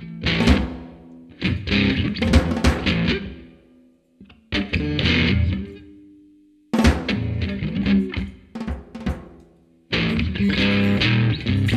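Free-improvised jazz from a drum kit and electric guitar playing in abrupt, loud bursts, about five of them, each broken off by a short pause where a held note rings on.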